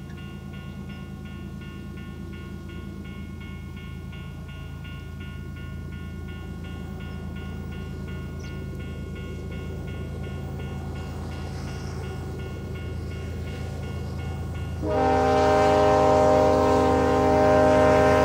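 Diesel locomotives of a BNSF coal train rumbling steadily and slowly growing louder as they draw near. About fifteen seconds in, the lead GE ES44AC sounds its Nathan K5LLA air horn in one long blast of several notes at once, the loudest sound.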